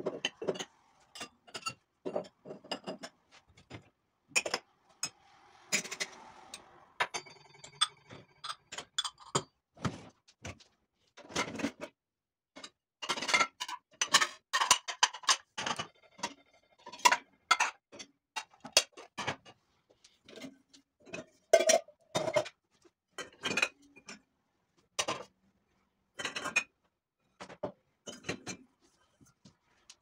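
Glasses, a glass bowl and stainless steel pots and lids clinking and knocking as they are lifted out of a dishwasher's wire racks, one item after another. A few clinks ring briefly.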